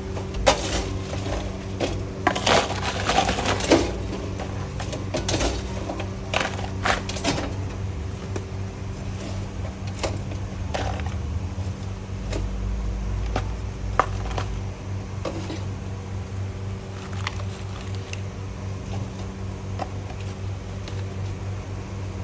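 Food-prep handling in a fast-food kitchen: a flurry of clatter, knocks and crackles in the first few seconds, then scattered single knocks, over a steady hum of kitchen equipment.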